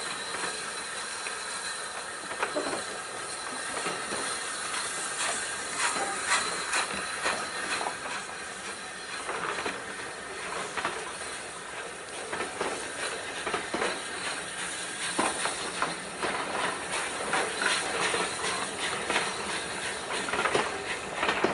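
Steam-hauled train of coaches rolling past, wheels clicking and knocking irregularly over the rail joints, with steam hissing from the locomotive and a faint squeal of wheels.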